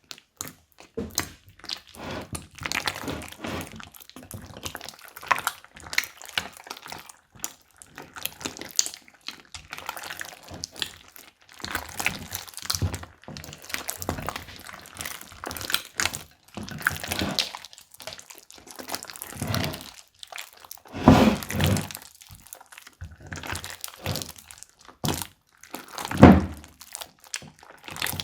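Slime being squeezed and kneaded by hand: a run of small crackling clicks and pops, with two heavier squelching thuds, one about 21 seconds in and one about 26 seconds in.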